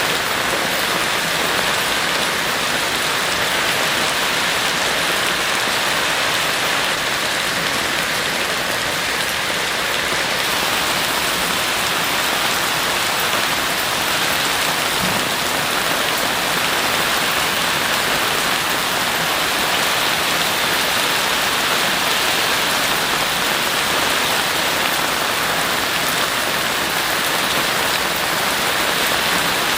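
Heavy rain falling steadily, a dense even hiss of drops on surfaces with no breaks or thunder.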